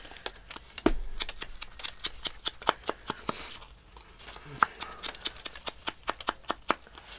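Quick, uneven tapping as a round ink blending tool is dabbed against the edge of a small paper circle, several light taps a second, with one heavier knock about a second in.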